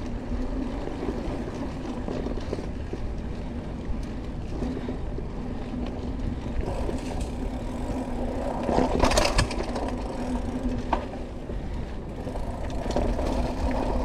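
Mountain bike rolling along a dirt singletrack: the tyres give a steady rolling rumble on the dirt, with a louder clatter of the bike over rough ground about nine seconds in.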